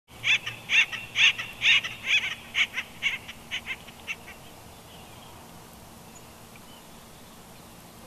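Acorn woodpecker calling: a rapid series of repeated calls that fades out about four seconds in.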